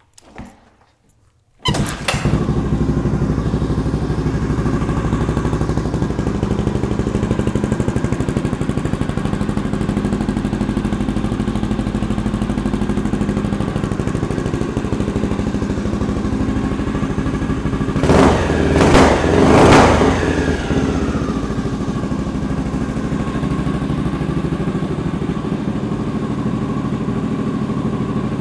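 1982 Honda Ascot 500's single-cylinder four-stroke engine, kick-started warm, catching about two seconds in and then idling steadily. It is revved twice about two-thirds of the way through, then drops back to idle.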